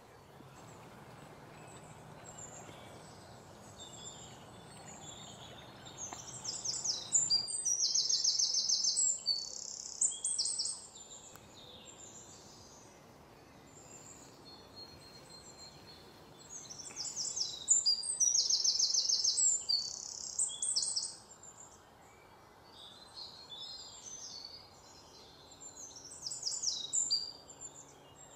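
Songbirds singing outdoors: a loud, rapid song bout comes about eight seconds in and again about nine seconds later, with a shorter one near the end and quieter chirps in between.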